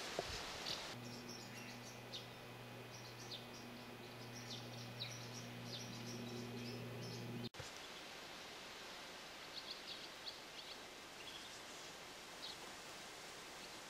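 Swallows twittering: short, high chirps scattered throughout over a faint outdoor hiss. A steady low hum starts about a second in and cuts off abruptly about halfway through.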